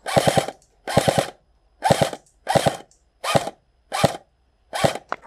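JG MP5 airsoft electric gun firing seven short bursts of a few rapid shots each, under a second apart, each burst ending in a brief falling tone.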